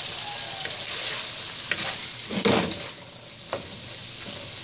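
Minced garlic and tuna chunks sizzling in a nonstick wok while a wooden spatula stirs them, with a few scrapes of the spatula across the pan, the loudest about two and a half seconds in.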